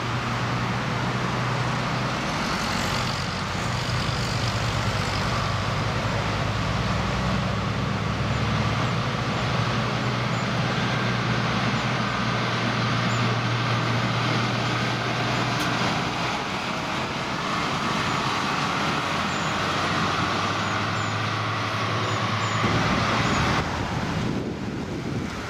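CPH 'Tin Hare' rail motors running along the line, a steady engine drone with a low hum that shifts in pitch and level a couple of times.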